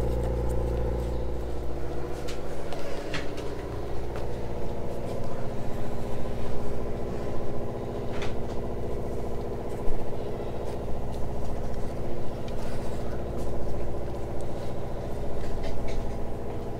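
A motor running steadily with an even, low hum, with a few light clicks and scrapes of a wooden stick mixing epoxy putty in a plastic cup and spreading it.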